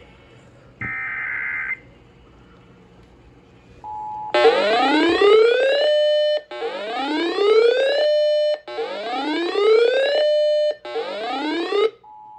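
Emergency Alert System tones on a radio broadcast. There are two one-second bursts of buzzing digital data tones, as in the end-of-message bursts after an alert. Then comes a brief two-note attention tone, then four loud rising whoop-like siren sweeps, each about a second and a half long. A short two-note tone closes it near the end.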